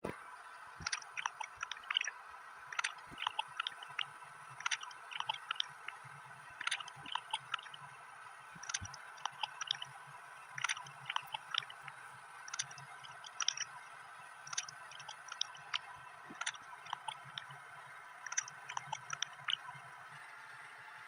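Clusters of short, sharp clicks and crackles, about every one to two seconds, over a steady hiss.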